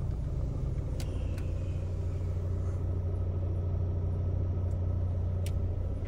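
Car engine idling steadily while the car stands still in a traffic jam, a low even hum heard from inside the cabin, with a few light clicks.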